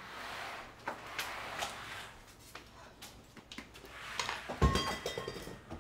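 Household clatter: small knocks and rustling, then about four and a half seconds in a heavy thump with a short metallic ring, an object knocked over.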